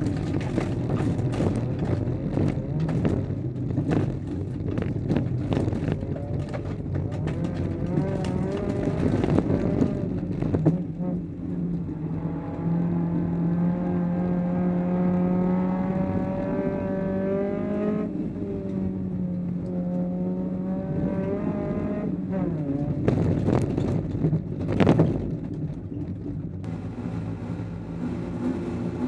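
Honda Civic folkrace car's engine heard from inside the bare, caged cabin, running hard as the car races. For the first ten seconds many rattles and knocks come through the body. In the middle the engine note holds steadier, changing pitch with gear changes. A brief loud surge comes near the end.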